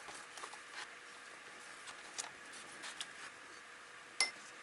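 Faint room tone with scattered small taps and clicks of handling, and one sharper click about four seconds in.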